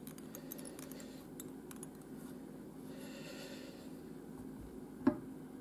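Quiet handling sounds at a fly-tying vise: faint small ticks as the tier works the fly's materials, a soft hiss past the middle, and one sharp tap about five seconds in, over a low steady hum.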